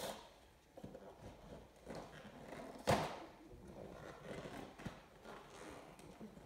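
Handling and opening a cardboard Lego set box: scattered taps and knocks with rustling, and one sharper knock about three seconds in.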